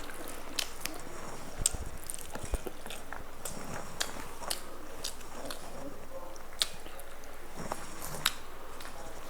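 A person eating, chewing and biting food close to the microphone, with scattered small clicks and smacks.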